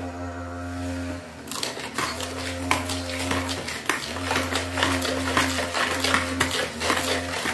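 Wire whisk beating a sugar-and-egg batter in a plastic mixing bowl: a rapid, irregular clatter of the wires scraping and tapping against the bowl, starting about a second and a half in.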